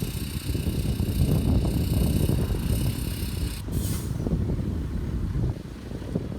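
Heavy diesel earthmoving machinery running with a dense low rumble, over a high hiss that cuts off suddenly a little past halfway. The engine sound drops in loudness near the end.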